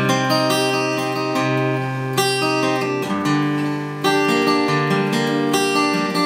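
Acoustic guitar strummed, with full chords ringing and changing every second or two; a brief dip comes just before a fresh strum about four seconds in.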